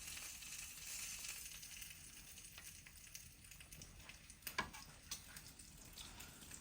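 A floured, buttermilk-and-egg-coated piece of chicken frying in hot oil: a steady sizzling hiss, strongest in the first couple of seconds, with scattered pops and crackles, one sharp pop about four and a half seconds in.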